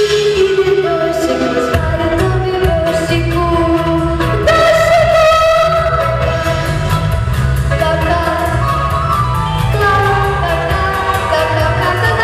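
A singing voice carrying a melody over instrumental accompaniment with a bass line and a steady beat.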